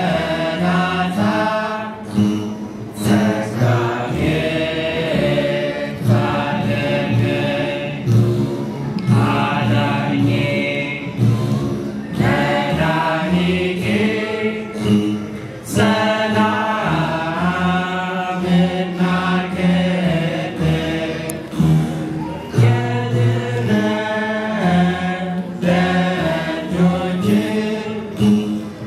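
A group of men singing an Ethiopian Orthodox begena hymn (mezmur) in chant-like unison, accompanied by several begenas, large ten-string lyres plucked with a low buzzing tone.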